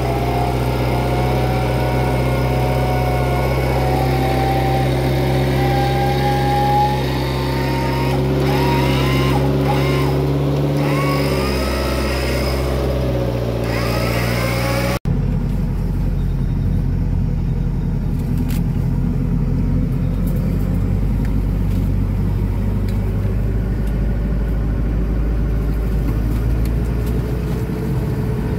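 Off-road 4x4 vehicle engines running, with the pitch shifting up and down in the first half. An abrupt cut about halfway through leaves a deeper, rougher engine sound.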